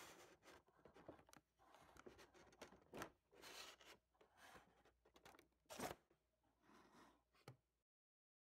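Faint rustling, tearing and crinkling of toy packaging as a box is opened, with a few sharper clicks; the loudest rustles come about three and six seconds in, and the sound cuts off to silence near the end.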